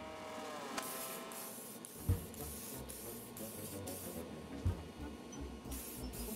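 Spray paint can hissing in a series of short bursts as model parts are sprayed, with two dull thumps between them. Faint background music underneath.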